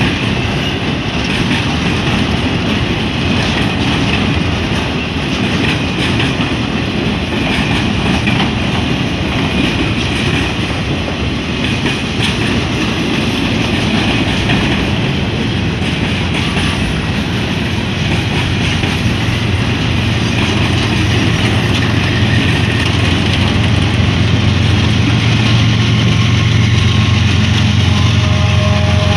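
Freight train of boxcars rolling past, with steady rumble and wheel clatter over the rails. From about two-thirds of the way through, the low drone of an approaching diesel locomotive builds and becomes the loudest sound.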